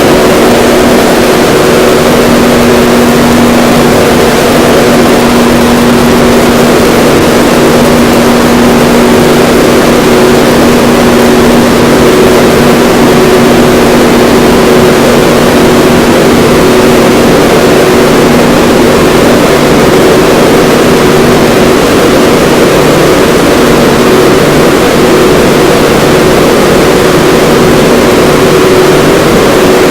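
Train horn held in one long chord of several steady tones, boosted so far that it is heavily clipped and distorted, and very loud throughout.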